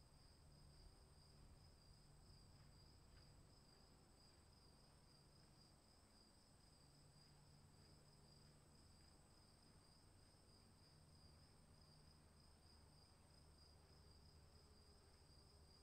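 Near silence: a faint, steady high-pitched insect chorus with a slight pulse, over a low rumble.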